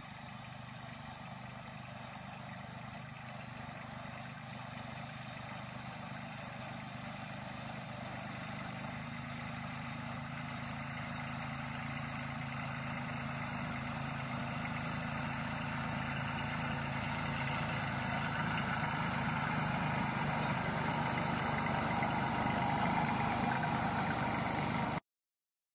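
Engine of a self-propelled crop sprayer running steadily while it sprays, growing slowly louder as the machine comes closer, then cutting off abruptly near the end.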